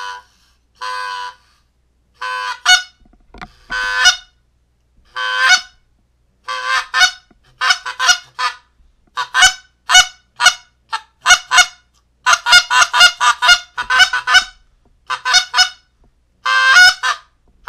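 Hand-blown goose call: a few drawn-out honks about a second apart, then fast runs of short clucks and honks in quick succession, with one longer honk near the end.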